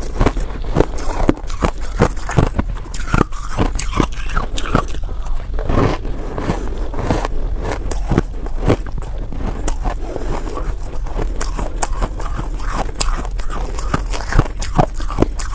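Close-miked crunching of buckwheat reshaped ice (shaved ice packed into a block and refrozen) as it is bitten and chewed: a quick, irregular run of sharp crunches.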